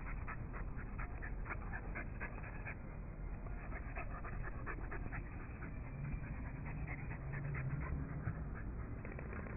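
A dog panting close to the microphone, with scattered short clicks and rustles throughout.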